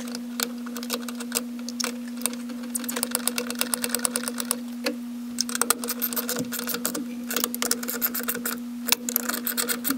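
Socket ratchet clicking in quick runs as the brake master cylinder's mounting nuts are tightened down on their studs. A steady low hum runs underneath.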